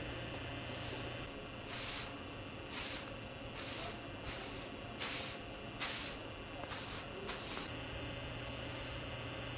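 A series of about nine short hissing bursts, unevenly spaced over some six seconds, over a steady electrical hum.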